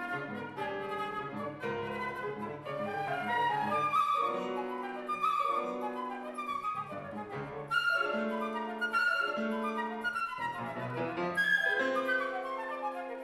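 Concert flute playing a quick classical passage of runs and leaps, over repeated piano chords.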